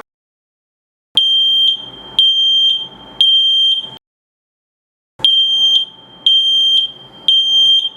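WiFi smoke alarm's piezo sounder going off in the three-beep alarm pattern: a group of three loud, high-pitched beeps, a short pause, then three more.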